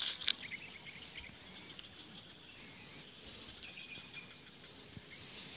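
Insects trilling in a steady high-pitched chorus, with one short click a fraction of a second in.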